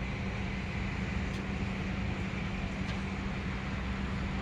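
A steady mechanical hum: one even low drone that does not change, over outdoor background noise.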